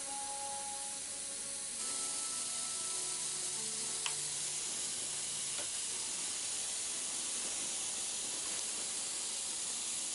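Steady hissing noise that gets slightly louder about two seconds in, with one short sharp tick about four seconds in.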